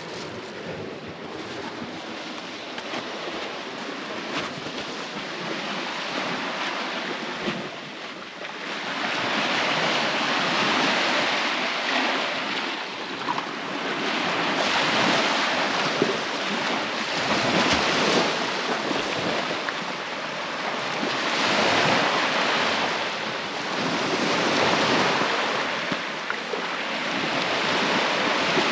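Small waves washing up on a sandy beach, the surf swelling and ebbing every three to four seconds. It grows louder about a third of the way in.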